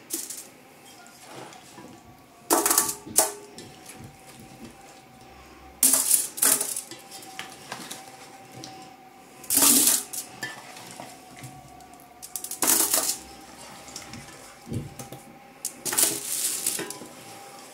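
Aluminium foil lining a baking tray crinkling and rustling in about five short bursts as potato wedges are laid on it by hand.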